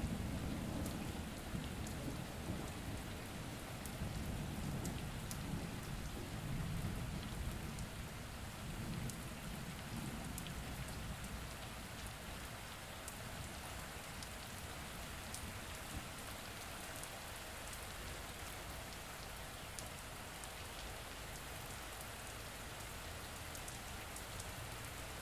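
Steady rain, with single drops heard as sharp little ticks, over a low rumble of thunder that dies away over the first half.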